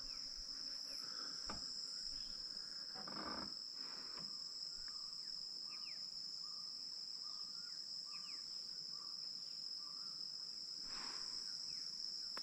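Steady high-pitched chorus of crickets and other insects, with faint short chirps and a few brief downward whistles from other small animals.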